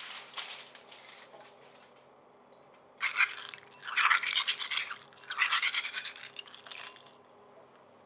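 Aluminium foil being crumpled by hand for the first second or so, then asari (Manila) clams rubbed shell against shell in a bowl of water to wash them: a scrubbing, clattering sound in three bursts, the loudest of them about a second apart.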